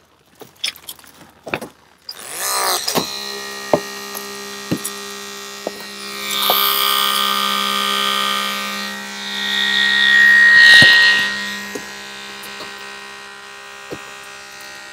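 Battery-powered Holmatro hydraulic rescue cutter cutting through a car's roof pillar: a few handling clicks, then about two seconds in its motor spins up with a rising whine and runs with a steady hum. It gets louder twice, around six and ten seconds in, as the blades bite through the metal, with sharp snaps along the way.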